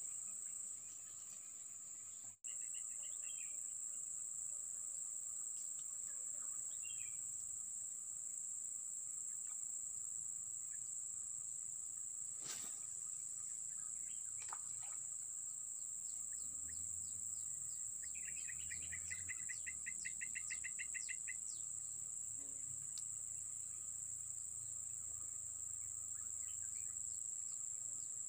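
Steady high-pitched drone of insects, with a bird calling now and then and giving a quick run of rapid repeated notes a little past the middle.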